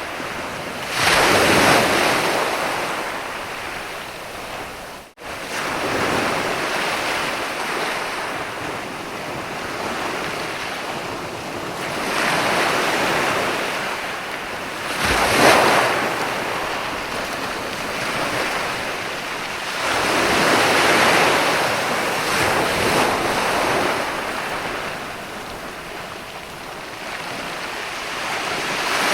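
Ocean surf breaking on a sandy beach: a steady wash of water with waves surging in every few seconds, the loudest crash about halfway through. The sound cuts out for an instant about five seconds in.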